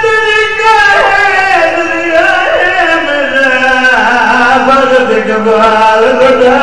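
A man sings a qasida unaccompanied into a microphone in long, melismatic held notes. The melody slides downward and settles on a lower note about halfway through.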